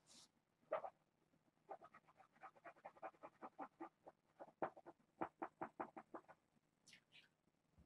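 Fingernails skritching on a round cardboard cat scratcher: quick scratchy strokes, about five a second, in two runs with a short break about four seconds in.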